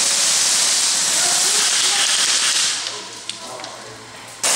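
A loud, steady rushing hiss that fades about three seconds in; a second hiss cuts in suddenly near the end.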